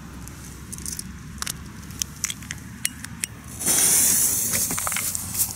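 Lit fuse of a Cobra 6 firecracker spitting sparks: scattered sharp crackling clicks at first, then a sudden loud hiss starting about two-thirds of the way in and continuing as the fuse burns.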